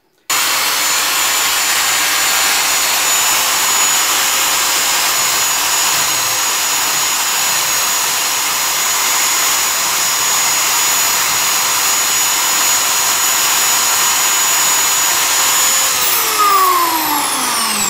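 An old corded electric drill, mounted as a homemade disc sander, spins its sanding disc at steady full speed with a steady whine while a small strip of wood is sanded against the disc. Near the end it is switched off and begins to wind down, its whine falling in pitch.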